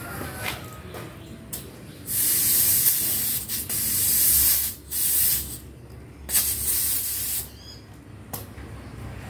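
Compressed air from a compressor's tyre inflator gun hissing into a car tyre valve in four bursts of about a second each, as an under-inflated rear tyre is pumped up to 35.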